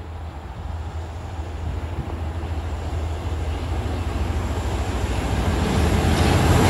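Diesel locomotive hauling a passenger train on approach: a steady low engine drone with rail noise, growing evenly louder as it nears.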